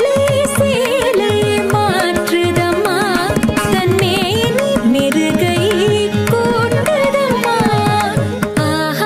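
Carnatic-style song: a singing voice with an ornamented, wavering melody over a steady hand-drum rhythm.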